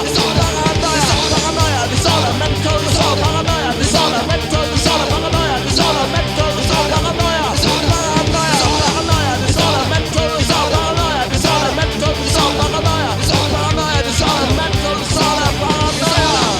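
German rock-punk crossover band recording playing loud and even: guitars, bass and drums at a driving beat, with a lead line that bends up and down in pitch throughout.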